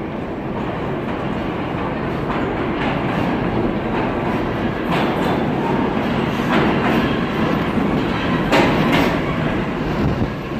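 New York City subway train pulling into an underground station. A steady rumble grows louder as the cars roll in, with wheels clacking over the rail joints, often in quick pairs.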